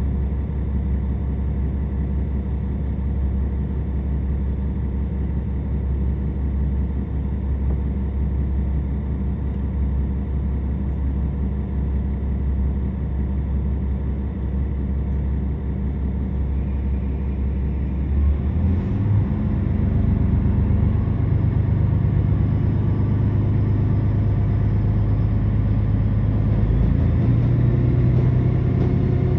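KiHa 47 diesel railcar's underfloor diesel engine running, heard from inside the passenger cabin. About two-thirds of the way through, the engine note steps up in pitch and gets a little louder.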